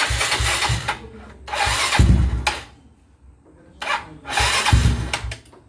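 Yamaha Mio Soulty scooter's stock four-stroke single-cylinder engine revved in three throttle blips through a Chicken Pipe aftermarket exhaust, each a raspy burst of about a second that drops back between revs.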